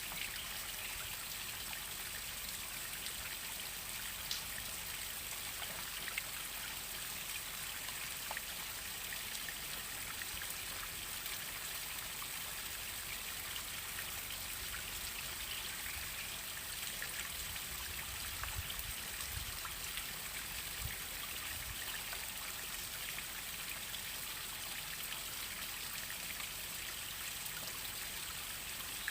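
Waterfall water splashing down in a steady rush, with scattered drips and splashes.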